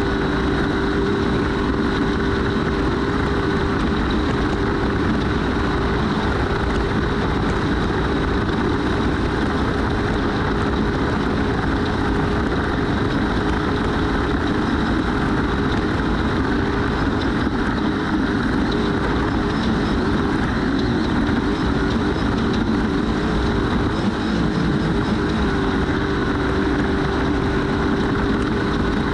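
Trophy truck engine running hard at a steady high pitch, with the constant rumble and rattle of the truck at race speed, heard from on board.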